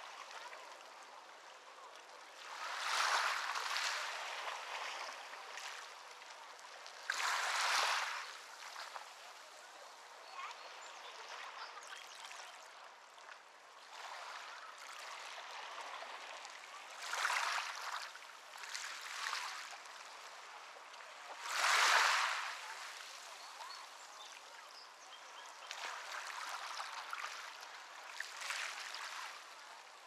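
Moving water: a steady rushing hiss with louder washes that swell and fade every few seconds, the strongest about seven and twenty-two seconds in.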